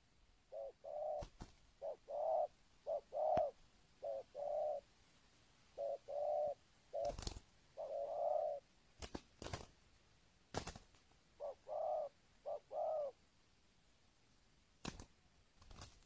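Spotted dove cooing: a run of low two-part coos, each a short note then a longer one, about six in a row, then a pause of about three seconds and two more. Sharp clicks are scattered through.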